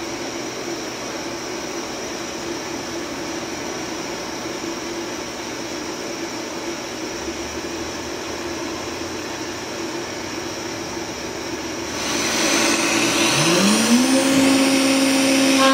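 Steady rushing hum of shop machinery. About twelve seconds in the sound brightens, and the Haas SR-100 CNC router's spindle spins up with a rising whine that levels off into a steady high whine.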